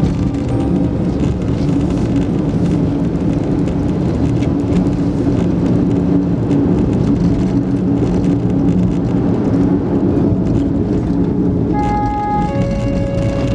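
Car driving along a road: steady engine and tyre noise with a low hum. About twelve seconds in, music with long held notes comes in over it.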